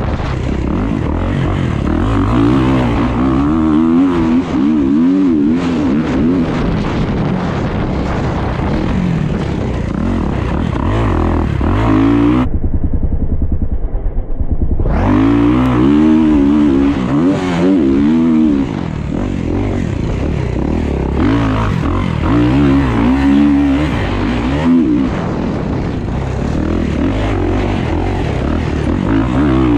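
Kawasaki dirt bike engine heard on board, revving up and falling back again and again as it is ridden along a trail, with wind noise. For a couple of seconds about halfway through the sound turns muffled.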